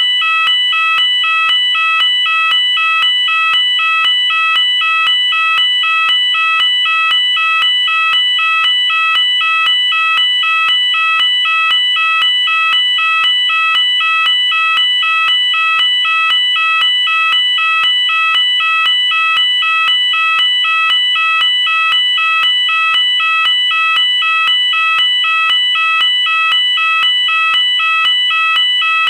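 Electronic UK fire alarm sounder going off: a loud two-tone warble that alternates rapidly and evenly between two high pitches, several times a second, without a break.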